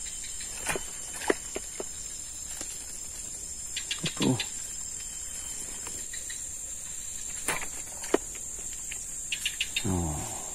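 Steady, high-pitched drone of insects in the forest, with scattered small clicks, a short falling call about four seconds in and another low call near the end.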